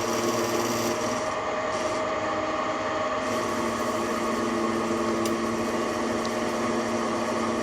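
TV-16 benchtop lathe running with a steady motor hum, with a scraping from the cutter working the turned part.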